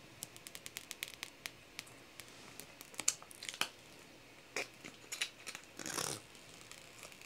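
Clear protective plastic film being peeled off a new iPhone SE, crackling and crinkling in a run of quick small ticks, with a longer crinkle about six seconds in.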